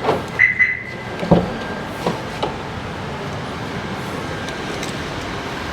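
Suzuki Jimny being handled: a handful of knocks and clicks in the first two and a half seconds, such as a car door and fittings, one with a brief high squeak or chime. These are followed by the car's steady hum.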